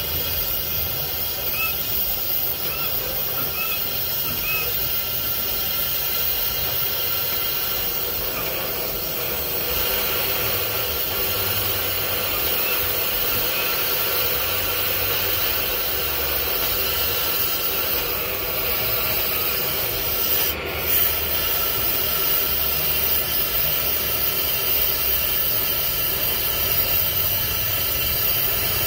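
Gas torch burning with a steady hiss as its flame is held into a two-stroke motorized bike's expansion-chamber exhaust to burn off carbon buildup. The noise falls off briefly and jumps back a little past two-thirds of the way through.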